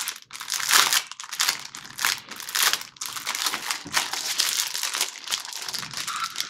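Clear plastic bag crinkling as it is opened and its contents are pulled out: an irregular run of crackles and rustles.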